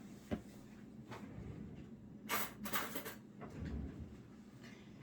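A few scattered handling noises: a light click, a brief cluster of rustles in the middle, and a sharp thump near the end.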